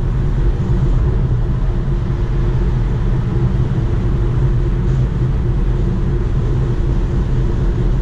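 Steady road and wind noise inside a Tesla Model 3's cabin at highway speed: a low tyre rumble with a rush of wind over it and no engine note from the electric drive.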